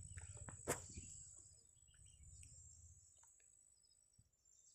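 Near silence: faint outdoor ambience with a thin, steady high-pitched tone, and a soft click less than a second in.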